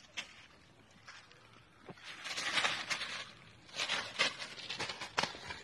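Dry grass and leaves rustling and crunching in several short bursts as a caught wild rooster is handled in them, starting about two seconds in, with a couple of sharp clicks.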